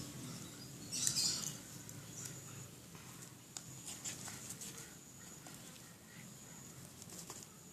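Foam slime being stirred in a bowl as activator is mixed in: soft sticky squelches and small clicks, a little louder about a second in.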